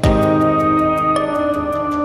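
Background music: sustained synthesizer chords with a light, steady ticking beat, the chord changing about a second in.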